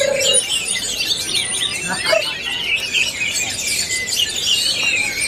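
Several caged orange-headed thrushes (anis merah) singing at once: a dense run of overlapping high chirps, whistles and trills.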